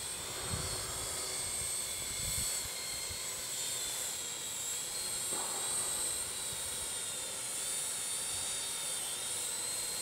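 Parrot quadcopter drone's electric motors and propellers in flight, a steady high-pitched whine that wavers slightly in pitch as the motors adjust speed.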